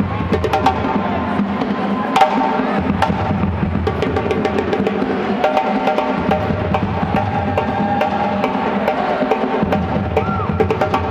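Live percussion music: rapid hand-drum strikes on a djembe over a few held background tones.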